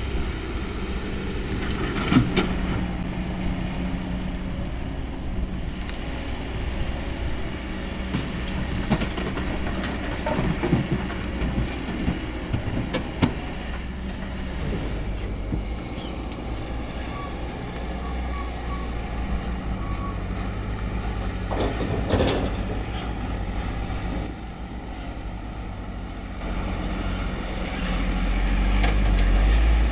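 Kobelco SK200 excavator's diesel engine running under working load as it digs and loads soil, with scattered metallic clanks. The engine gets louder near the end.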